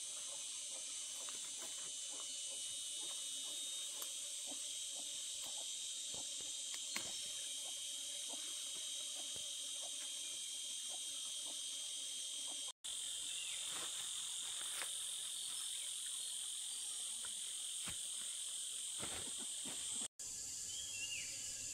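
Steady, shrill chorus of insects, with faint scattered light ticks beneath it; the sound cuts out abruptly twice for an instant.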